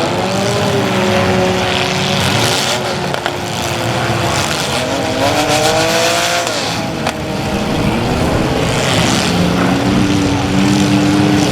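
Several compact cars' engines revving up and down together during a demolition derby, their pitches rising and falling against each other, with a sharp knock about seven seconds in.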